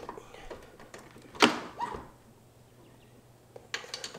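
Work noise at a scooter's lower rear shock mount as a bolt is fitted by hand: one sharp knock about a second and a half in, then a few light clicks near the end.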